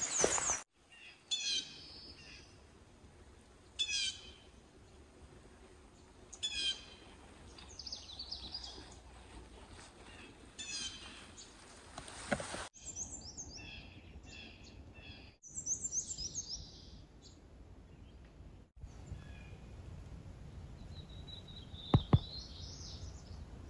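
Wild songbirds singing in woodland: one repeats a short phrase of high notes falling in pitch every few seconds, and other birds sing in the second half. Two sharp knocks about 22 seconds in.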